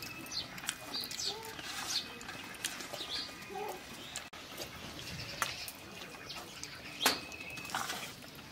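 Birds calling in the background, with scattered short clicks and one sharp tap about seven seconds in.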